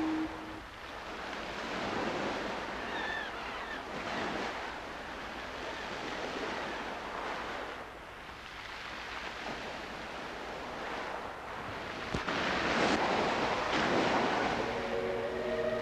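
Sea waves washing onto a rocky shore, the surf swelling and falling back every few seconds, with the biggest wash near the end.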